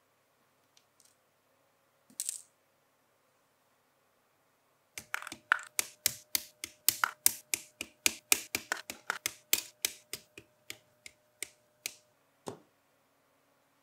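Hobby side cutters snipping plated plastic model-kit parts off the sprue, a fast run of sharp clicks at about four a second for some seven seconds, with one last click soon after. A short hiss comes about two seconds in, before the snipping.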